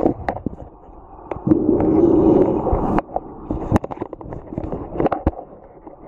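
Underwater sound picked up by a camera just above the seabed: irregular sharp clicks and crackles throughout, with a surge of muffled water noise about one and a half to three seconds in.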